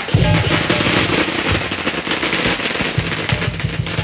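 A string of firecrackers going off in a rapid, continuous crackle of bangs.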